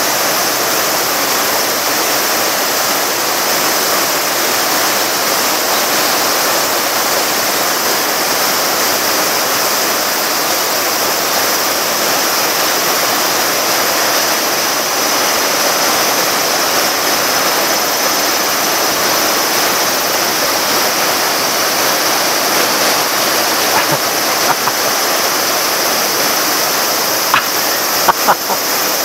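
Water falling steadily into a pond from a small cascade beside a water wheel, a constant rushing splash. A few faint clicks come near the end.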